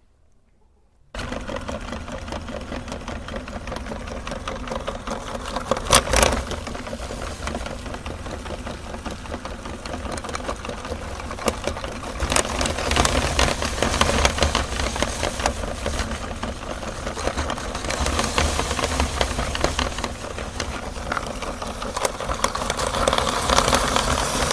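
Electric meat grinder switching on about a second in and running steadily as it grinds candy, its motor humming under a constant crackle of pieces breaking, with one louder crunch about six seconds in.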